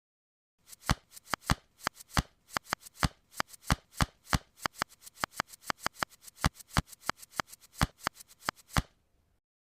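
Plastic tiles of a fifteen puzzle being slid rapidly in a speedsolve, a fast, uneven run of sharp clacks, several a second, which stops abruptly near the end.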